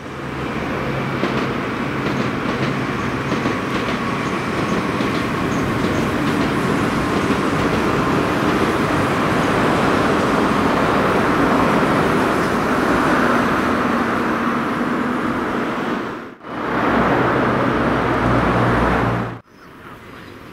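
Meitetsu electric train crossing an old steel girder railway bridge at slow speed: a steady, loud rumble of wheels and rail joints echoing on the steel span, with a faint motor whine. The sound breaks off abruptly twice, about 16 and 19 seconds in, and ends much quieter.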